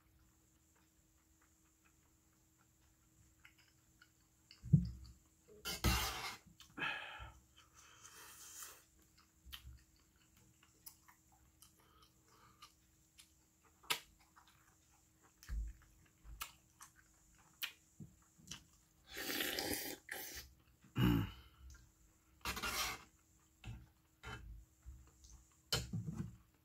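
Mukbang eating sounds: chewing and mouth noises with scattered clicks of a metal spoon against an aluminium pot, broken by several short, louder rushing sounds, the loudest about five seconds in and around twenty seconds in.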